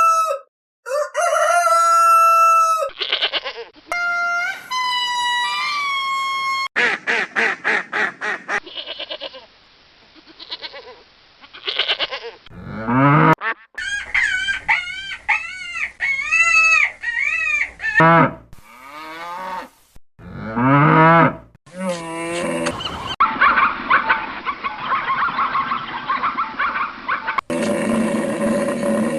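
A string of chicken and rooster calls cut together in short clips: crowing and clucking, with a run of repeated rising-and-falling calls in the middle and a noisier mix of many birds near the end.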